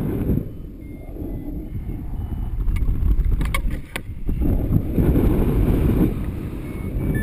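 Airflow buffeting the microphone of a camera on a paraglider in flight: a low rushing that swells and eases, with a brief cluster of clicks about three to four seconds in.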